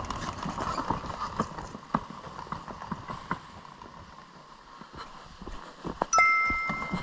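Bicycle rattling and clicking as it rolls over an uneven surface, in irregular knocks. Near the end comes one sudden bright ring with two clear pitches that fades away over about a second.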